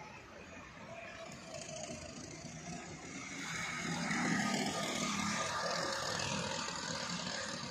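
Go-kart engines running on the track, growing louder from about halfway through.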